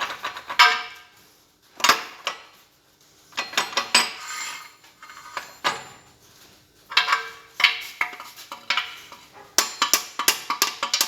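Steel gearbox parts and tools clink and clank in short, separate bursts while a Massey Ferguson 135 gearbox mainshaft is worked into place. Near the end, music with quick, even, bell-like ticks comes in.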